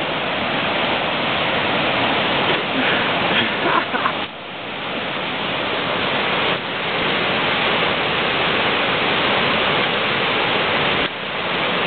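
Steady rushing roar of a white-water river at the bottom of a deep rock gorge, dipping briefly about four seconds in and again near the end.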